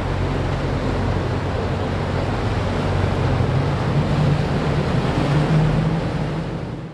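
Boat engines running with a low, steady drone over the wash of surf and wind, fading out near the end.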